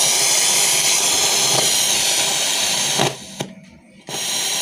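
Polytron Cosmo radio cassette recorder's speaker giving out a loud, steady static hiss. It cuts out for about a second near the end, then comes back. The volume cannot be turned down, a fault the repairer puts down to a loose volume potentiometer.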